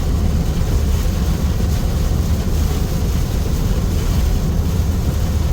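Heavy rain pouring down in a loud, steady hiss with a deep low rumble underneath.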